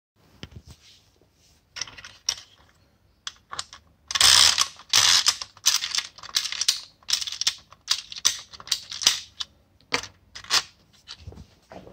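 Clockwork spring motor of an Arnold A560 tin toy motorcycle being wound with its key: repeated bursts of ratchet clicking, one stroke about every half to three-quarters of a second, louder from about four seconds in.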